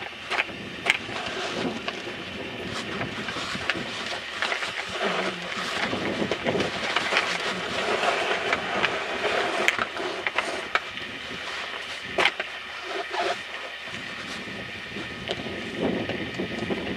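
Steady rustling and rattling handling noise from a hang glider being moved over snow by its control frame, with scattered sharp clicks and knocks.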